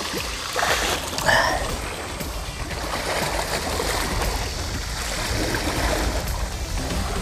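Steady wash of sea water with wind rumbling on the microphone, and two short louder sounds in the first second and a half.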